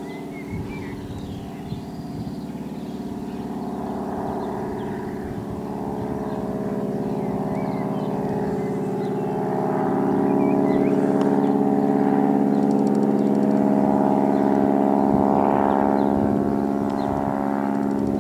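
Biplane's piston engine and propeller running overhead with a steady, rough tone that grows louder about halfway through as the aircraft comes closer.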